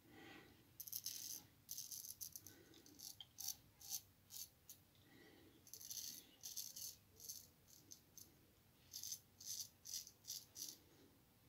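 Straight razor scraping through lathered stubble on the chin: a faint series of short, crisp crackling strokes in quick groups, one after another.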